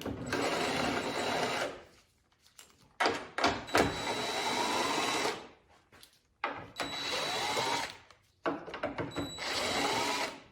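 A cordless power driver with a 10 mm socket running four times in short bursts, spinning off the four nuts that hold the taillight assembly to the hatch. Each run lasts about two seconds, with a brief pause between nuts.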